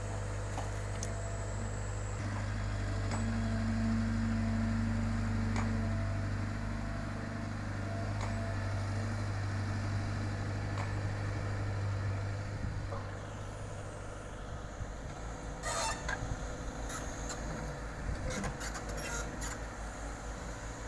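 Diesel engine of heavy construction machinery running with a steady low hum. It rises a little for a few seconds early on, then settles to a low, even throb in the second half. A few sharp knocks come near the end.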